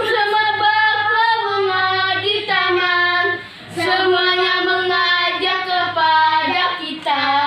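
Children singing a Sunday school action song, the sung phrases pausing briefly twice, with a faint steady hum underneath.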